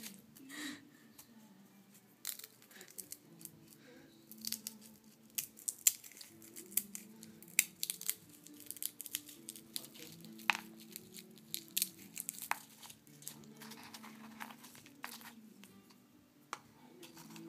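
Dry nut shells rustling and cracking in a plastic bowl as a pet noses through them and a hand picks among them, with many irregular sharp clicks, busiest in the middle.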